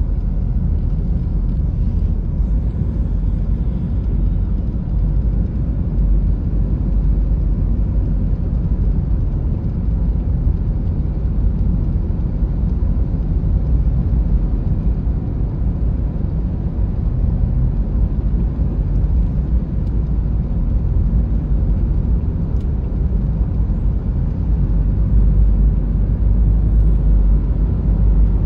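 Steady low rumble of road and engine noise heard inside the cabin of a car driving on a highway, growing slightly louder near the end.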